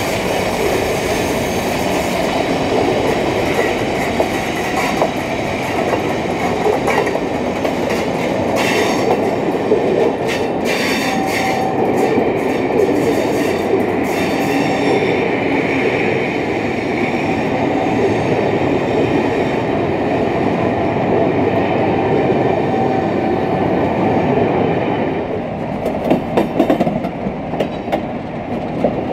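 Mk2 passenger coaches rolling past: a steady rumble of wheels with clatter over rail joints and a thin squeal now and then. Near the end the sound changes to a few sharper clanks.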